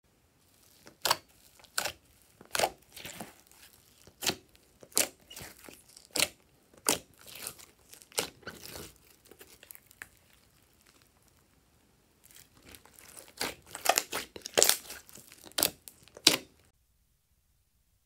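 Slime squeezed and pressed by hand, giving sharp pops and crackles as air pockets burst. The pops come singly, roughly one every second at first. After a quieter spell they come as a dense run of crackles, which cuts off suddenly near the end.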